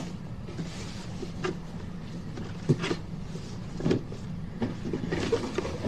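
Gift packaging being handled and opened: a few light knocks and short rustles, over a steady low hum.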